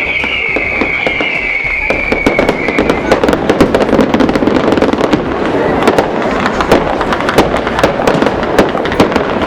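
Fireworks: high whistles sliding slightly down in pitch fade out in the first three seconds, then a dense run of rapid crackling bangs.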